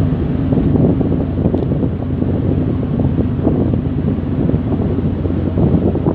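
Wind buffeting the phone's microphone on a moving ferry's open deck, over a steady low hum from the ship's engines.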